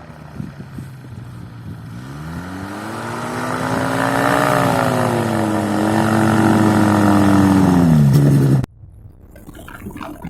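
Paramotor engine running, its pitch rising over a couple of seconds, holding high, then dropping before the sound cuts off abruptly. A quieter rushing noise follows.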